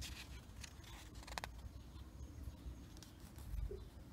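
Pages of a thick paper catalogue being turned by hand: a crisp rustle and crackle of paper in the first second and a half, then a soft low bump about three and a half seconds in.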